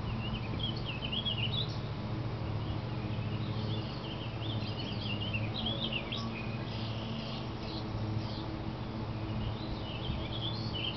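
Small birds chirping in repeated quick, wavering phrases, over a steady low hum.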